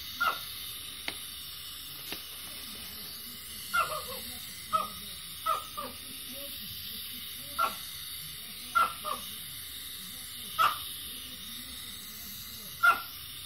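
Liquefied gas spraying from an upturned canister onto a steel cylinder liner to chill it: a steady hiss, broken by short sharp pops or spits at irregular intervals, about a dozen in all.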